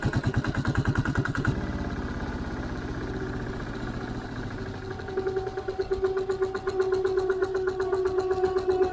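A vehicle's engine running with even pulses, then from about halfway through a steady squeal from the rear-wheel drum brake as it is applied. The squeal keeps coming back even though the drum has been taken apart and cleaned and the linings are not glazed.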